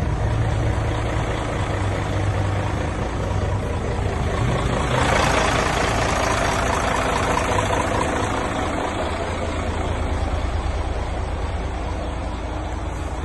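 Mercedes-Benz Actros heavy truck's diesel engine idling steadily with a low hum. About five seconds in, a loud hiss rises for a few seconds and fades.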